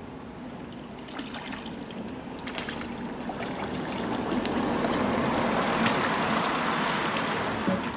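Water sloshing and splashing, growing louder over a few seconds and then holding, with a few faint clicks.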